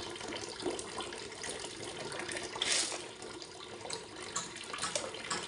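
Water running from a kitchen tap while shellfish are rinsed in a sink, with small clicks of shells knocking together and a brief louder rush of water a little before the middle.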